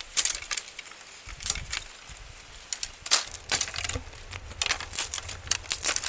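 Thin dry branches and twigs cracking and rustling as they are pulled and snapped by hand, in a string of irregular sharp cracks.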